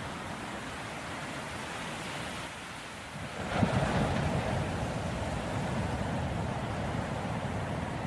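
Ocean surf rushing steadily, with a wave breaking about three and a half seconds in, after which the surge stays louder.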